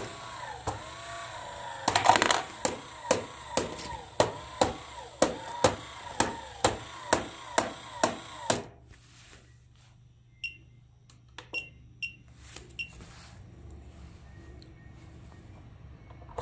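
Battery-type motor mechanism of a toy football coin bank, run at 3 V from a bench power supply, clicking about twice a second with a warbling tone between the clicks and a louder clatter about two seconds in. After about eight seconds it falls to a few faint ticks.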